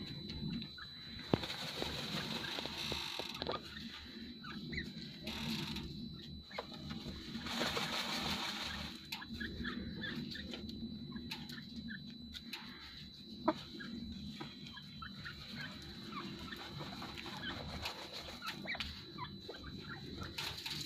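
Grey francolins clucking softly among themselves, with scratching and rustling in dry dirt as they dust-bathe; longer spells of rustling come about two and eight seconds in.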